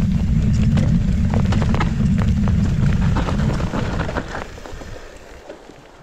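Mountain bike rolling fast downhill: heavy wind rumble on the microphone with scattered clicks and knocks from the bike rattling over the trail. It all fades away from about four and a half seconds in as the bike slows.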